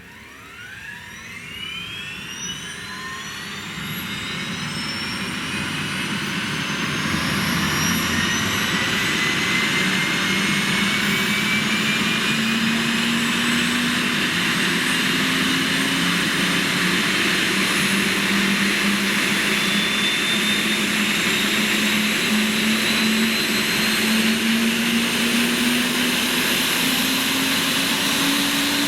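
Eurocopter AS365 Dauphin helicopter's turbine engine starting up: a whine that sweeps steeply up in pitch over the first couple of seconds, growing louder for about eight seconds, then running steady while a lower hum slowly climbs in pitch as the rotor gathers speed.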